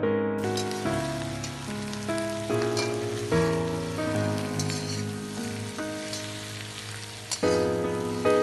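Piano background music over the crackling hiss of food sizzling as it fries in a pan; the sizzle starts abruptly about half a second in.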